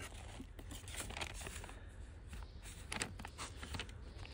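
Vinyl LP record jackets being flipped through one by one in a cardboard box: a run of soft rustles and light taps of cardboard sleeve against sleeve.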